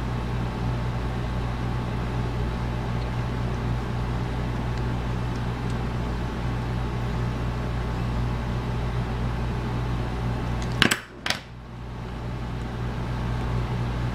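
Steady low hum of room background noise, with two sharp clicks close together about eleven seconds in, after which the hum briefly drops away and returns.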